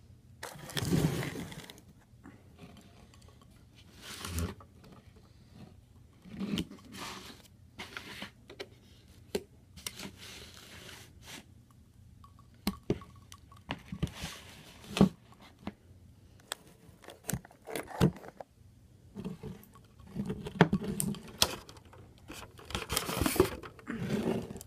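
Close-up eating sounds: chewing and mouth noises with scattered sharp clicks and scrapes of a fork against a plate and bowl.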